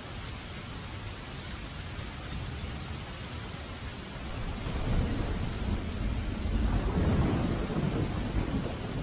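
Waterfall: a steady rush of falling water with a deep low rumble that swells louder a little past halfway.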